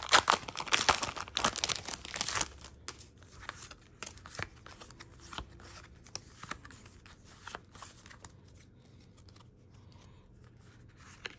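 A foil trading-card booster pack being torn open, with loud crinkling and tearing for the first two and a half seconds or so. After that come faint, scattered clicks and slides as the stack of cards is handled and flipped through.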